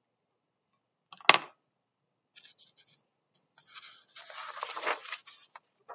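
A single sharp click about a second in, then faint scratchy rubbing and a longer rustle of a paper worksheet being slid and handled.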